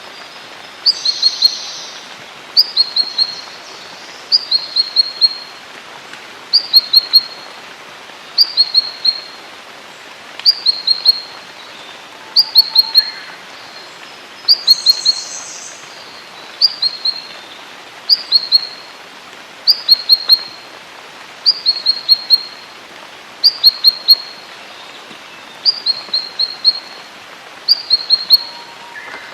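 A songbird repeating the same short phrase of three to four quick, high chirps about every two seconds, with a steady faint hiss behind it and an occasional second, higher call.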